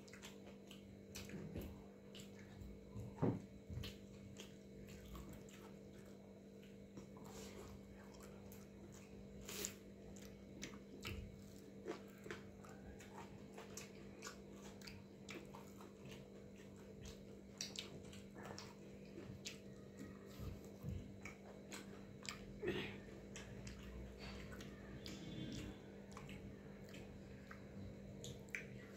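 Faint eating sounds: chewing with scattered soft clicks and smacks as someone eats water-soaked rice and pakoras by hand, over a steady low hum.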